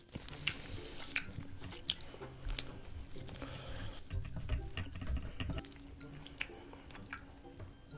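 Gloved hands cutting and tearing a giant steamed meat dumpling: the thick wrapper and minced-meat filling squish and pull apart, with sharp clicks of a metal utensil against the board. The handling is busiest mid-way and quietens near the end.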